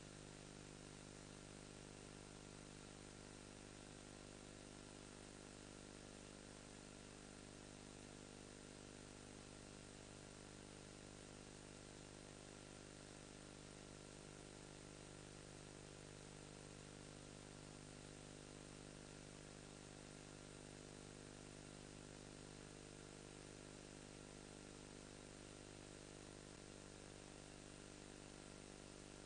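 Near silence: a faint, steady electrical hum and buzz with hiss underneath, unchanging throughout.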